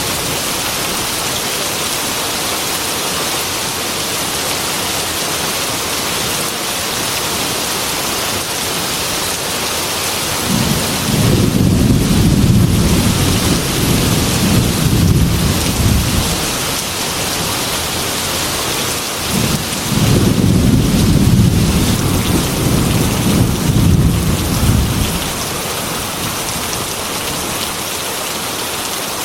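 Heavy rain falling steadily. Thunder rolls in twice: a long low rumble about ten seconds in, then another about twenty seconds in, each lasting several seconds.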